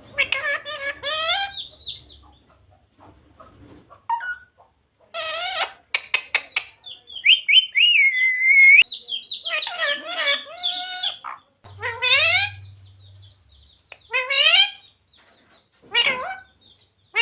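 Pet green parrot calling in a string of separate squawky, warbling calls with short gaps between them, including a held whistle with a wavering pitch midway and a quick run of clicks just before it.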